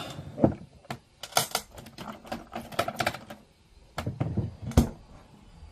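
Small hard objects clicking and clattering on a work desk as tweezers are fetched: a quick run of light clicks, then a few louder knocks, the last the loudest.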